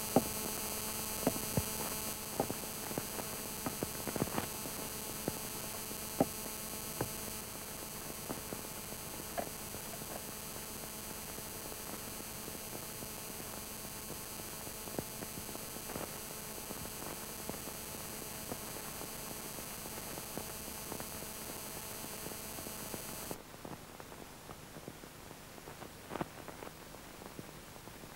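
Steady electrical hum with scattered clicks and crackles: the noise of an old film soundtrack with no dialogue or music. The higher part of the hum drops out a few seconds before the end.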